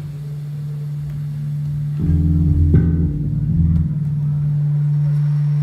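Amplified guitar notes during a soundcheck: a held low note swells slowly, more notes are struck about two seconds in with a click just after, and the notes ring on until they cut off sharply at the end.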